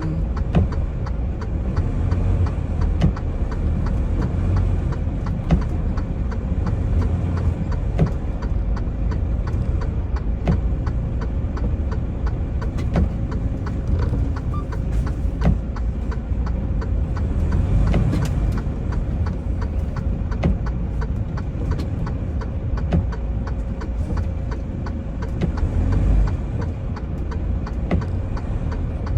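Semi-truck diesel engine and road rumble heard from inside the cab: a steady low drone with a faint constant tone, broken by scattered light clicks and knocks.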